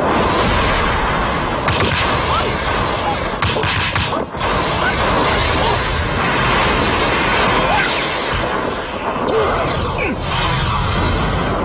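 Dramatic background music over martial-arts fight sound effects: whooshing swings, whacks and crashes.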